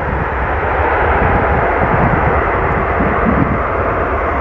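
Jet engine noise from an Airbus A380-861's four Engine Alliance GP7200 turbofans as the airliner rolls out along the runway after touchdown. It is loud and steady and swells slightly.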